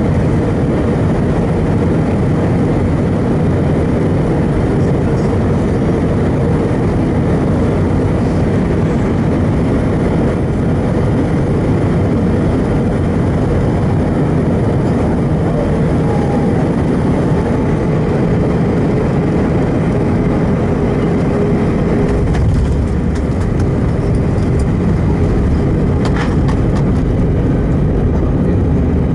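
Cabin noise of an Airbus A320 landing: steady jet engine and airflow noise with a held hum. About three-quarters of the way through the sound shifts to a lower rumble with scattered knocks and rattles.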